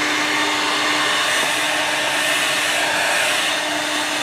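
Hair dryer running steadily: an even blowing hiss with a constant low hum from its motor.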